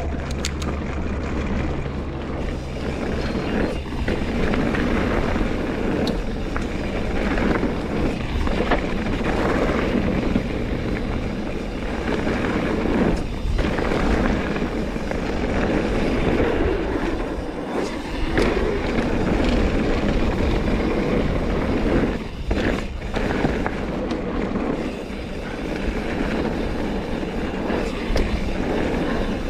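Mountain bike riding a dirt trail: a steady rush of wind over the microphone with tyre and rattle noise that swells and eases with speed, and a few short knocks from bumps along the way.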